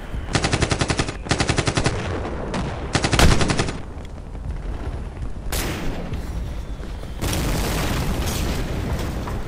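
Automatic rifle fire, as film sound effects, in four rapid bursts over the first four seconds, one of them very short, with a heavy boom about three seconds in. Then a steady rushing noise from about seven seconds in.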